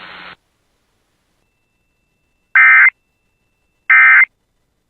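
Emergency Alert System end-of-message code: two short, loud, identical warbling data bursts about 1.3 seconds apart, marking the close of the weather radio warning. A brief radio hiss cuts off just before them.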